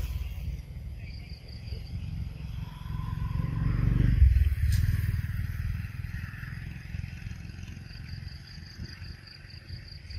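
Low rumble of a passing motor vehicle that swells to its loudest about four seconds in and then fades. An insect chirps in quick high pulses near the start and again near the end.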